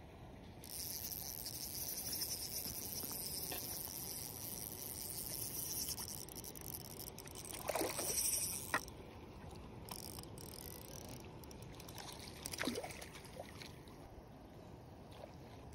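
Spinning reel giving a rapid, high-pitched ticking whir for several seconds while a hooked trout is played. About eight seconds in, the trout splashes loudly at the surface beside the landing net, with a smaller splash a few seconds later.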